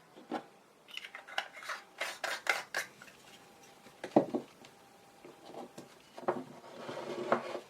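Small metal lens parts and tools being handled at the bench: a quick run of clicks and clinks, one louder knock with a short metallic ring about four seconds in, then rubbing with a few more clicks near the end.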